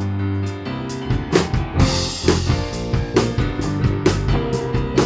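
Live church worship band playing a song intro: a held chord with bass, then a drum kit comes in about a second in with a steady beat.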